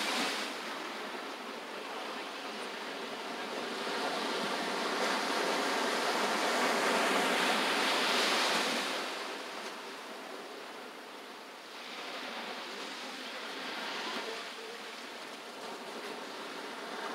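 Ocean surf breaking among shoreline rocks, a steady rush that swells and eases with the waves, loudest about halfway through, then a smaller swell later.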